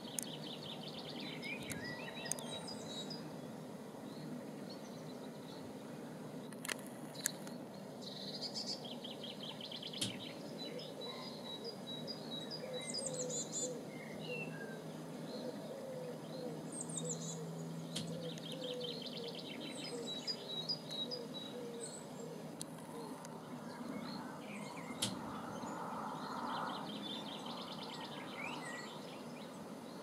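Wild songbirds singing over a steady low background noise: high phrases that repeat several times, among them short fast trills, with a few isolated sharp knocks.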